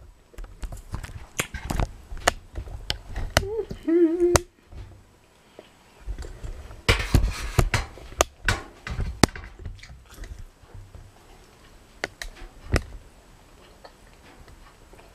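Scattered clicks and clinks of utensils and dishes while ribs are being eaten, with a short "mmm" of tasting about four seconds in and a second of louder noise about seven seconds in.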